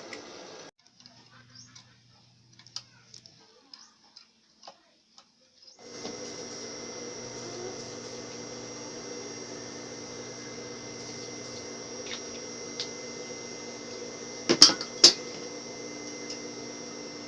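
Electric sewing machine motor, running on a newly replaced motor capacitor, hums steadily. It stops within the first second, stays off for about five seconds with a few small ticks, then starts again about six seconds in and runs evenly. Two sharp clicks come about a second before the end.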